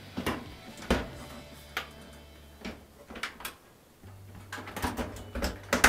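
Light clicks and knocks, about nine of them spread unevenly, from a gas clothes dryer's cabinet panels and door being handled and closed up.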